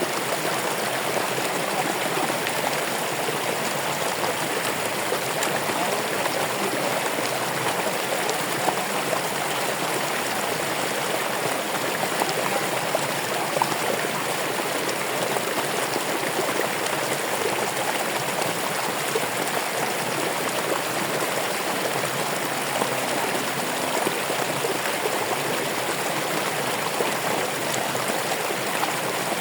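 Running water flowing steadily, a continuous rushing babble like a small stream, with small brief splashes standing out here and there.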